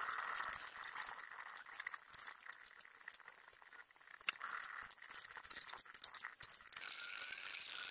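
Small wheeled maypole robots running on a concrete floor, sped up: a fast, jumbled clatter of clicks and rattles with a high hiss. It quietens for a few seconds and grows louder near the end.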